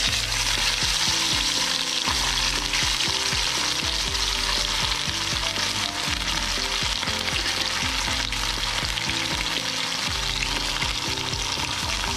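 Salted, flour-dredged tilapia frying in hot cooking oil, a steady dense sizzle and crackle.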